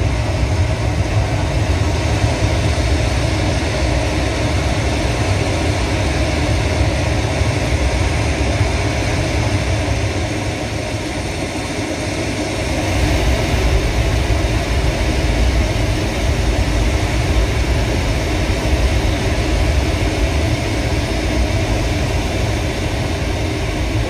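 Steady, deep rumbling soundscape from a projection show's outdoor speakers, dipping briefly about halfway through.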